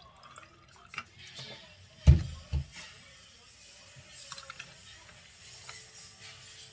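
Water poured from a bottle over ice cubes in a glass, then two dull knocks about two seconds in, then espresso poured over the ice, faintly.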